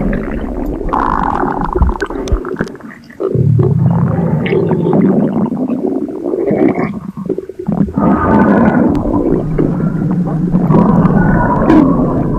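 Stomach rumbling sound effect: long, low, growling rumbles with gurgles, dropping away briefly about three seconds in before a longer, louder rumble.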